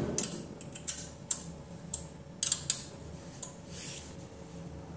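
Light clicks and small metallic knocks from exercise-bike parts being handled and fitted during assembly, about half a dozen sharp ticks spread over the first three seconds.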